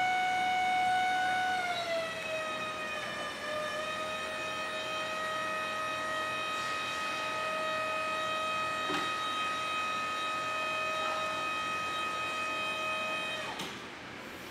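Hydraulic pump motor of a Crown 5700 series electric reach truck whining steadily as it raises the mast and forks. The pitch drops slightly about two seconds in, and the whine cuts off suddenly near the end as the lift stops.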